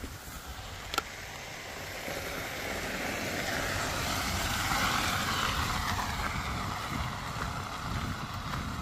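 A road vehicle passing by: tyre and engine noise swells to a peak about halfway through, then fades away.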